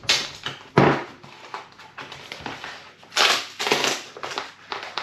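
A cardboard box and its packing being handled, pressed and folded shut: irregular crunching and crinkling in bursts, with a sharp knock about a second in.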